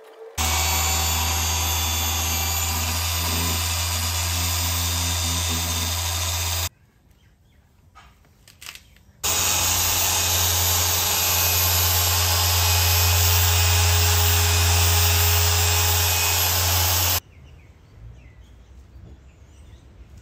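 Rupes dual-action polisher with a foam pad running at a steady speed while polishing car paint. It runs in two long stretches, each cutting off suddenly, with quiet in between and after.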